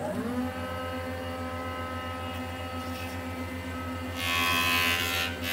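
A motor spins up, its pitch rising and then settling, and runs steadily with a low pulsing hum. A burst of hiss comes about four seconds in.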